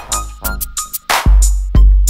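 Background music with a heavy electronic beat: deep bass drum hits and sharp snare-like hits in a steady rhythm.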